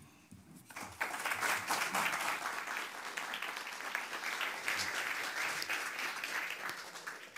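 Audience applauding a speaker at the end of his speech, the clapping building about a second in and holding steady before fading near the end.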